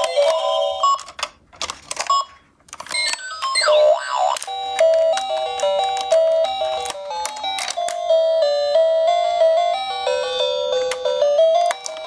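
Toy ambulance playset's electronic sound module setting off a beeping tune after its buttons are pressed. Plastic clicks come from the buttons and levers during the first few seconds, and from about four seconds in a simple melody of single electronic notes plays steadily.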